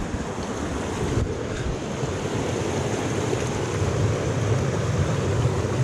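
Steady rushing of a small moorland stream running over and between rocks, an even, unbroken noise.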